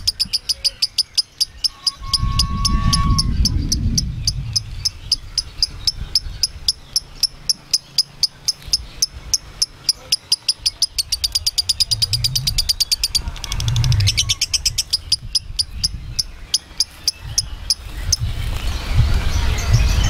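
Lovebird chattering: a long run of rapid, evenly spaced high chirps. It breaks off briefly about thirteen seconds in, starts again, and stops a couple of seconds before the end.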